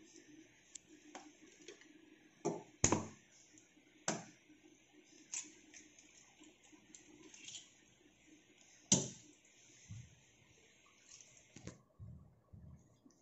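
Metal spoon clinking and scraping against a plastic bowl while mixing noodles with fish roe and raw egg: irregular light clicks, with a few sharper knocks, the loudest about nine seconds in.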